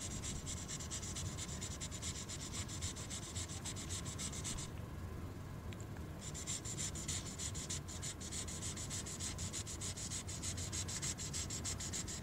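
Imagine Ink magic marker scribbling quickly back and forth on the book's coated paper: a fast, scratchy rubbing. It stops for about a second and a half near the middle, then resumes.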